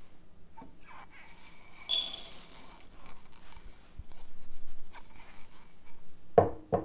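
Kitchenware handled on a counter: a sharp clink with a high ring about two seconds in, light handling noise, then two solid knocks near the end.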